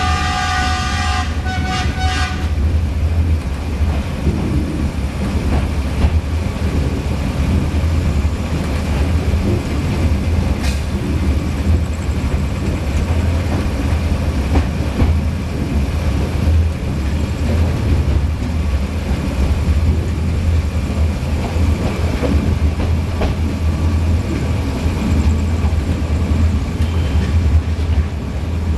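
Metre-gauge passenger train running, heard from inside the coach as a steady low rumble. A multi-tone train horn sounds at the start and cuts off about two seconds in.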